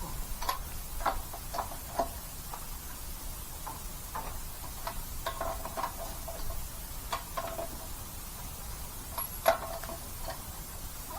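Scattered light metallic clinks and ticks of hand tools and lug nuts being handled while a wheel is mounted, each with a short ring. They come at an irregular pace, and the sharpest clink is about nine and a half seconds in.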